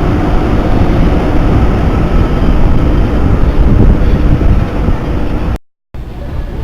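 Train running on the Chichibu Railway line, heard from inside the passenger coach: a steady, loud rumble of wheels on rails. The sound cuts out abruptly for a moment near the end.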